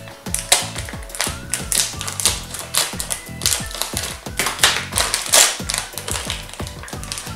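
Foil My Little Pony blind-bag packet crinkling and tearing as it is opened by hand: a rapid, irregular run of sharp crackles. Background music plays underneath.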